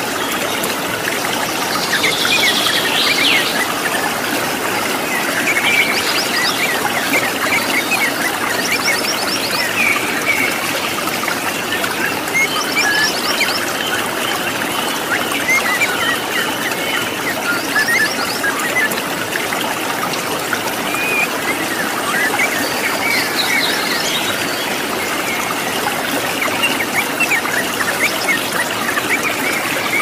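Waterfall rushing steadily, with many wild birds chirping and trilling over it in short, repeated calls.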